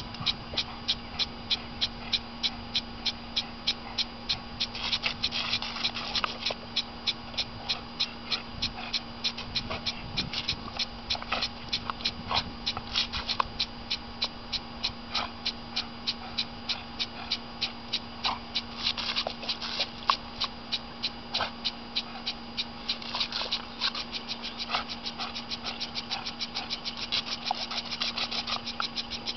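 Impact lawn sprinkler running, its arm ticking in an even rhythm of about three clicks a second that quickens slightly near the end, over a steady low hum.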